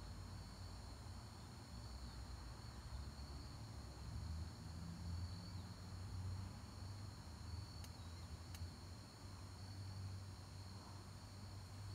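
Crickets trilling faintly and steadily at night, over a low steady rumble.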